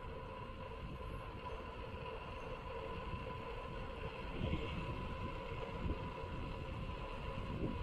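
Mountain bike rolling along a concrete road: a steady tyre and road rumble with wind buffeting the microphone, and a few bumps from the road about halfway through. A thin steady whine sits over the rumble.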